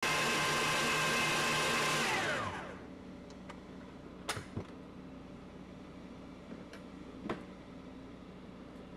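Hamilton Beach Commercial stand mixer running steadily, its whisk whipping icing in a steel bowl. About two seconds in it is switched off and its whine falls away as the motor spins down. Then come a few sharp clicks and knocks as the mixer head is raised, over a low hum.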